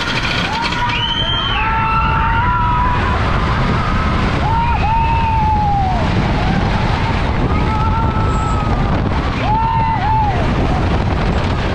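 Gold Striker wooden roller coaster train running on its wooden track, a steady rumbling clatter with wind on the microphone, and riders' voices calling out several times over it.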